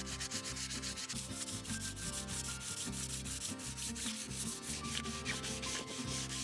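Coarse-grit sanding block rubbed by hand over an old oak beam in quick, repeated back-and-forth strokes, a steady scratchy rasp. This is the first coarse pass that takes the weathered surface back to clean, sound wood.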